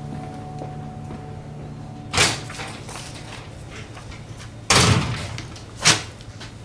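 A door opening and closing: three short noisy sounds, the middle one the loudest and longest.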